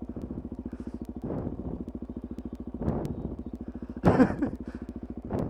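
Suzuki DR-Z400SM's single-cylinder four-stroke engine idling with an even, pulsing beat of about ten strokes a second. It rises in a few short swells, the loudest about four seconds in.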